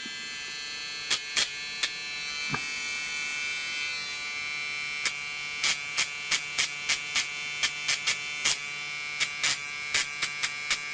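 A small electric rotary tool running with a steady high whine while deburring sewing-machine parts, with sharp irregular ticks that come much more often after about five seconds.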